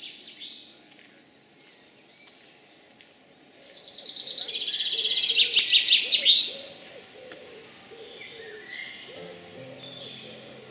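Woodland birdsong: a loud, rapid run of high notes builds up about three seconds in and stops sharply about three seconds later, over a series of low, short calls. Steady music tones come in near the end.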